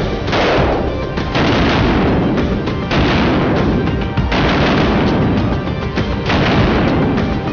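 Rapid automatic gunfire in long bursts, mixed with loud music.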